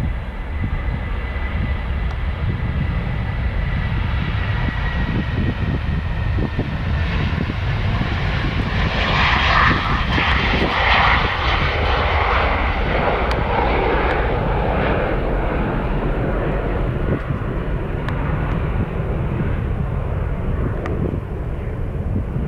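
Boeing 737's twin jet engines at takeoff thrust during the takeoff run and climb-out: a steady low rumble with a thin whine at first. It grows louder and rougher, crackling most around halfway as the jet passes, then fades as it climbs away.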